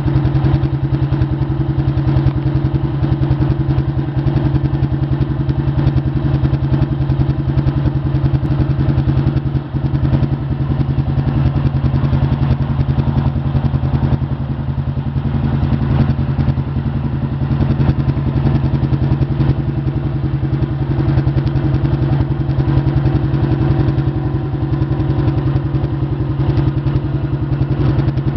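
Honda CG 125 Fan's single-cylinder four-stroke engine idling steadily in neutral, an even unchanging beat with no revving.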